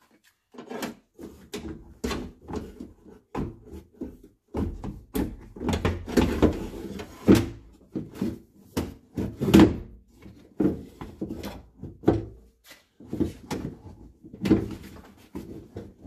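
Irregular knocks, clicks and rattles of a first-generation Toyota Sequoia rear hatch latch assembly being handled and worked back into its opening in the hatch door, metal parts bumping against the door panel.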